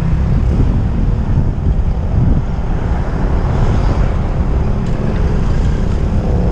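Loud, steady wind noise buffeting the microphone of a bicycle coasting downhill.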